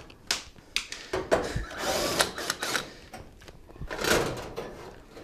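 Battery-powered drill with a Phillips bit running in short bursts, backing screws out of a range's sheet-metal back panel, with clicks and knocks of metal between the bursts.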